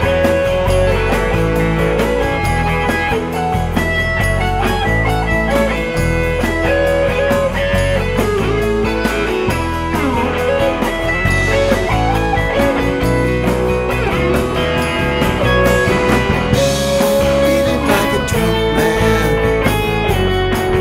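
Instrumental break in a blues-rock song: a lead guitar plays sustained, bending notes over bass guitar and drums.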